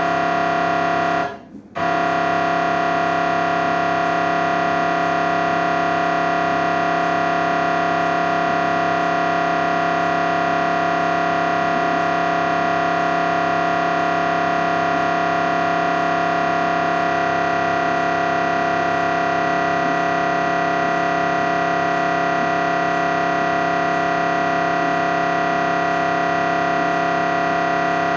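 MRI scanner's gradient coils buzzing during a scan sequence: a loud, continuous, unchanging drone made of many steady tones. It drops out for about half a second near the start, then carries on.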